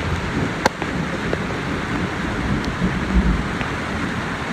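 Heavy rain falling steadily, with a few sharp ticks scattered through it.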